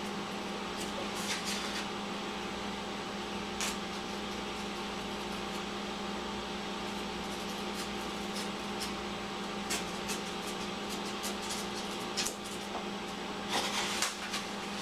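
A craft knife (X-Acto) cuts through foam board, heard as faint scattered ticks and scratches over a steady low electrical hum. Louder rustling of the board being handled comes in near the end.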